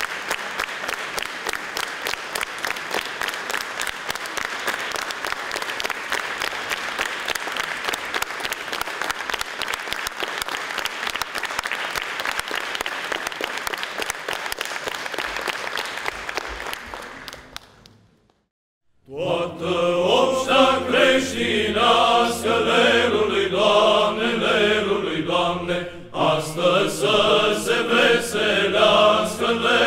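Audience applauding, dying away about two-thirds of the way through. After a moment of silence, a male Byzantine chant choir begins chanting over a low held drone (ison).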